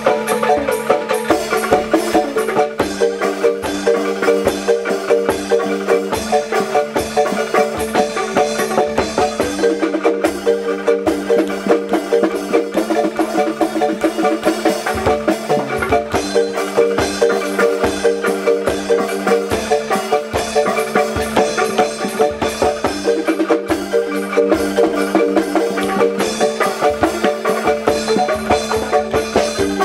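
Music with a melody on xylophone-like mallet percussion over a steady, regular beat.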